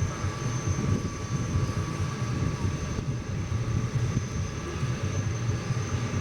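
Jet airliner engines running steadily: a low rumble with a thin high whine held over it.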